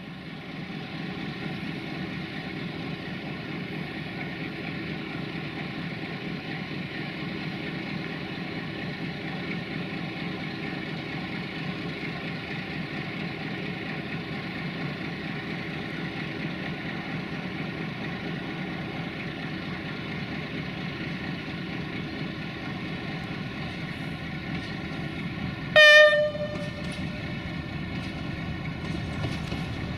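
Duewag Class 628 diesel railcar's engine running steadily as the unit rolls in. One short, loud horn blast sounds about 26 seconds in.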